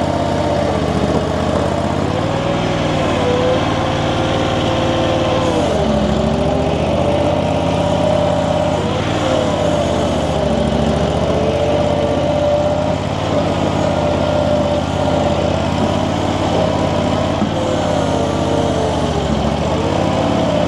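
The engine of an Infront YF380 mini skid steer runs steadily while working. Its pitch sags briefly and recovers a few times as it takes load.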